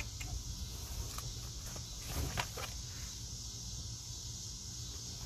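Outdoor ambience: a steady high insect drone over a low rumble, with a few faint soft knocks, the strongest just over two seconds in.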